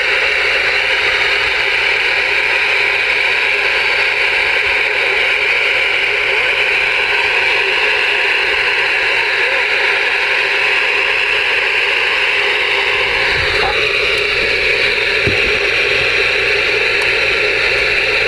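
Ranger RCI-2970N2 ten-meter transceiver's receiver giving a loud, steady static hiss through its speaker on channel 34, with the squelch open. The hiss shifts slightly in tone about 13 seconds in.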